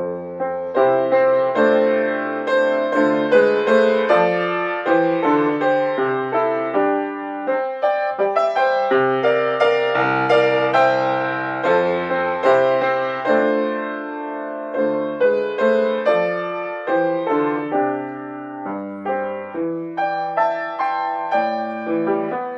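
Solo piano playing a classical piece, with chords and melody notes struck in steady succession and left to ring.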